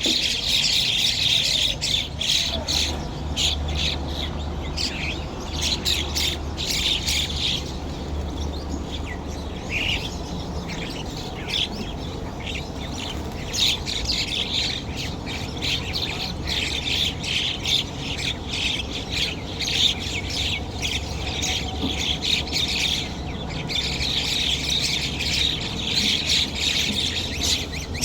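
A flock of birds calling at once, a dense chatter of short squawks and chirps that thins briefly about a third of the way through, over a low steady rumble.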